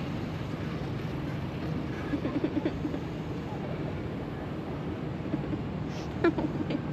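Steady rumble of a chairlift ride: the haul cable and chairs running, with a brief sharp squeak or knock about six seconds in.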